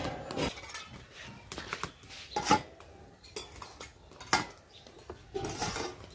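Metal kitchen utensils and pots clinking and knocking in a string of separate knocks, the loudest about two and a half seconds in and again a little after four seconds.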